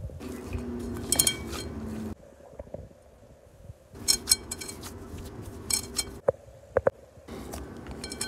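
Hands kneading and pressing glutinous rice flour dough in a glass bowl, with the dough rubbing and the fingers knocking and clinking against the glass. A steady low hum underneath stops and restarts twice.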